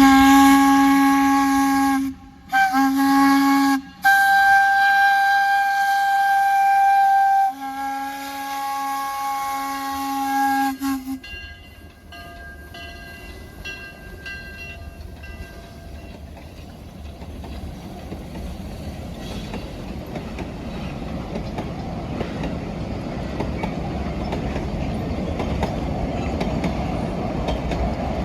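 Baldwin narrow-gauge steam locomotive's whistle blown in four blasts: two short, then two long ones. Then the train's running noise builds steadily and gets louder toward the end.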